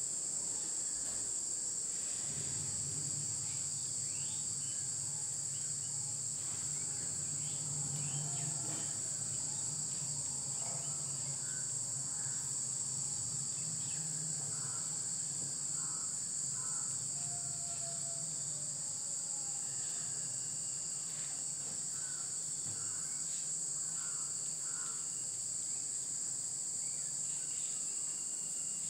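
A steady high-pitched drone of insects, with faint scattered scratches of chalk on a blackboard as a line is written.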